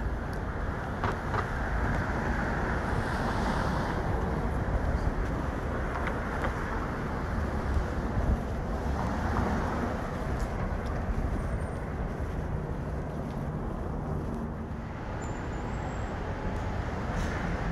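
Steady city street traffic noise: a continuous rumble of passing vehicles.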